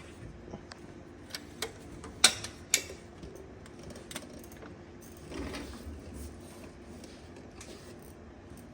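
Light metallic clicks and clinks of hand tools and parts at a wheel hub, about half a dozen scattered strikes with the sharpest a little over two seconds in, and a brief scrape about five and a half seconds in.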